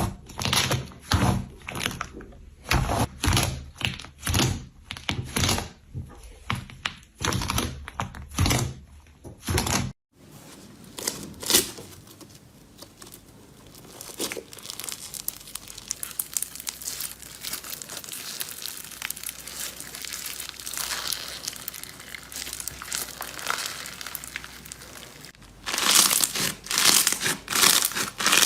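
Slime being handled: rhythmic squishing presses about twice a second, then after a sudden cut a long, dense crackling and crinkling as it is stretched and worked, and near the end rhythmic presses again.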